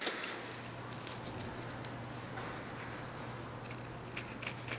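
Spray-mounted paper template and glue being scraped off sawn aluminium plate pieces with a small hand blade: an irregular run of short, dry scratches and ticks over a steady low hum.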